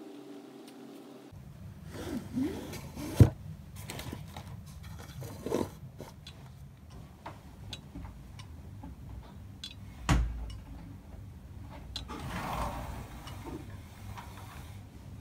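Curtains and a window being handled and opened by hand: a sharp click about three seconds in, a few lighter knocks, a thump about ten seconds in, and a stretch of rustling around twelve seconds, over a low steady hum.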